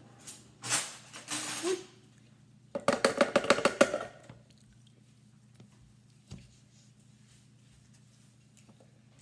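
An ice cream scoop knocking and scraping against a blender jar in a quick rattling run of about a dozen strikes, about three seconds in, as a scoop of ice cream is shaken off into the jar. A shorter scraping rush comes about a second before it.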